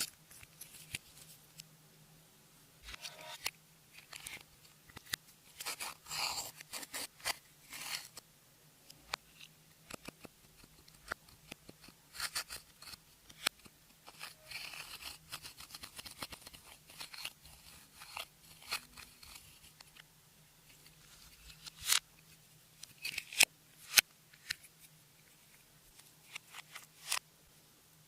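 Clear slime being worked by hand, giving off irregular sticky clicks, pops and short crackles as it is pressed and pulled.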